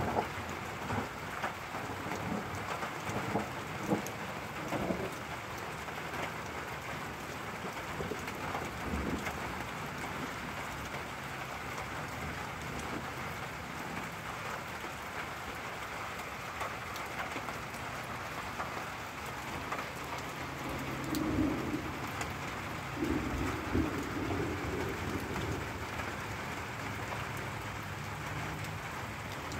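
Steady rain falling through a thunderstorm, with low rumbles of thunder underneath. A few louder drops or taps stand out in the first few seconds.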